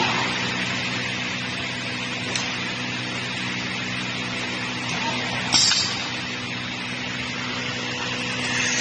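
Steady running of fabrication-shop machinery: a constant low hum under an even hiss, with a short, sharp hiss about five and a half seconds in.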